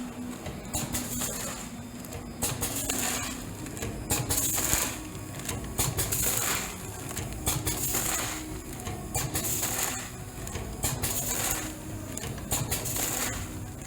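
Automatic vertical form-fill-seal packing machine (MVP-006xH1) running as it bags loose-leaf tea: a steady mechanical hum with rattling clicks, and a hissing burst repeating about every two seconds with each packing cycle.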